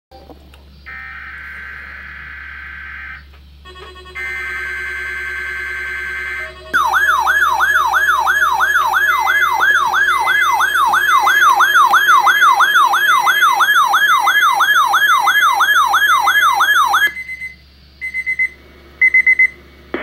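Weather alert radio receiving a weekly test alert. It opens with two buzzing bursts of digital alert-code data, then sounds its warbling alarm, which sweeps up and down about three times a second for some ten seconds and cuts off. A few short beeps follow near the end.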